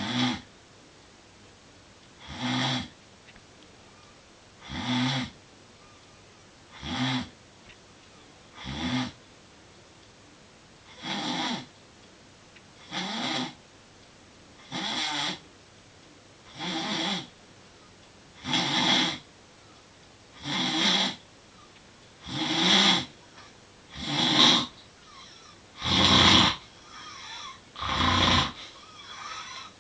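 Snoring, one rasping snore about every two seconds, growing louder toward the end.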